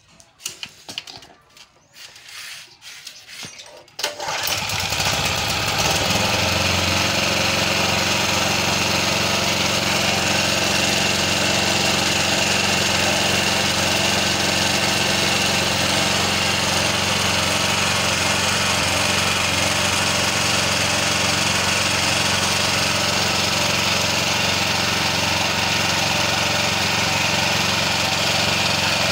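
A few knocks and clicks, then about four seconds in a Firman petrol generator's engine starts and settles into a steady, even run at constant speed.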